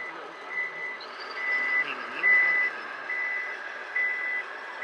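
Reversing beeper of a radio-controlled model truck: a steady high beep repeating a little faster than once a second.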